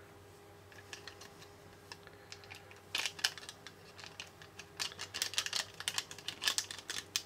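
Foil powder sachet crinkling in the fingers as it is tapped and shaken to empty powder into a small plastic cup. It is quiet at first, then a string of small soft crinkles and ticks starts about three seconds in.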